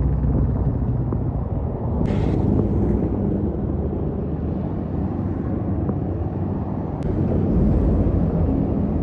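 Heavy diesel tour bus engines rumbling as buses drive past, with a short hiss about two seconds in and the rumble swelling louder near the end.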